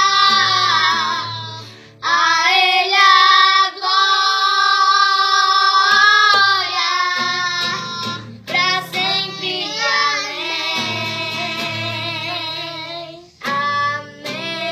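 A child's voice singing a song in held, gliding phrases over guitar accompaniment, with short breaks between phrases.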